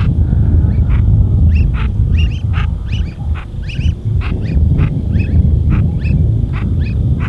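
Brazilian teal calling: a rapid series of short, sharp notes, two or three a second, with a brief pause near the middle, over a steady low rumble.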